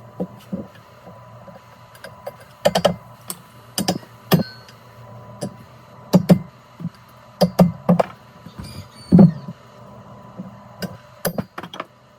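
Irregular sharp knocks and clicks, about a dozen, from work on fitting a new universal joint into the driveshaft yoke, over a steady low hum.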